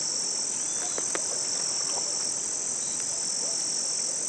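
Evening chorus of crickets and other insects: a continuous, steady high-pitched buzz, with a few faint bird chirps about a second in.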